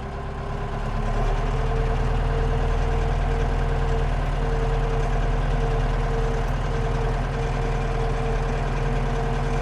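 Landini Blizzard 65 tractor's diesel engine running while driving, heard from inside the cab; it picks up in loudness over the first second or so, then holds steady.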